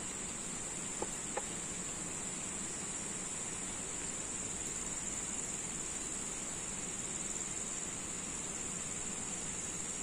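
Steady high-pitched drone of insects in chorus, with two short clicks a second or so in.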